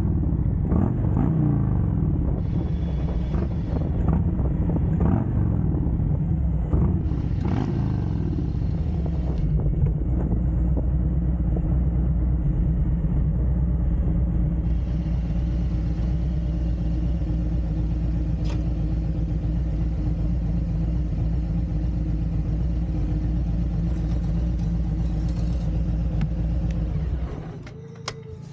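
Harley-Davidson Road Glide Special's Milwaukee-Eight 114 V-twin running at low road speed, its pitch rising and falling over the first several seconds, then holding steady, and stopping about a second before the end.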